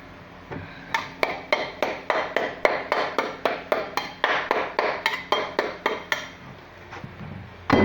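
Metal tool chipping damp, crumbling plaster off a wall: a rapid, even run of sharp clinking knocks, about four a second, for around five seconds, then a louder knock near the end.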